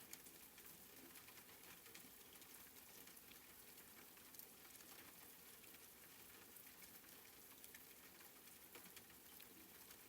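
Faint rain: a steady patter of many small drops, with no pattern or change.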